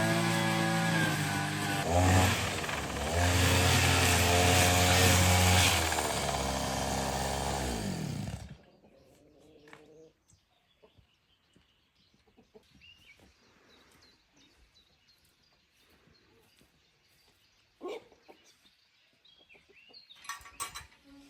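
A small petrol engine running and revving up and down, then cutting off suddenly about eight seconds in. After that it is quiet, with faint bird chirps and a single knock.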